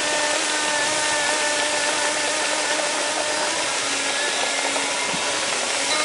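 Waterfall rushing steadily, a dense, even roar of falling water. Behind it runs a steady, unchanging motor-like drone.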